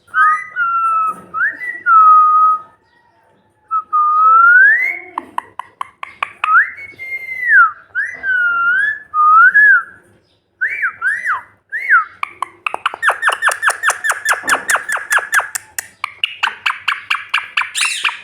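Pet parrot whistling: a run of short, clear whistles swooping up and down. These turn into a rapid string of short chirps, about six a second, and end in a held whistle.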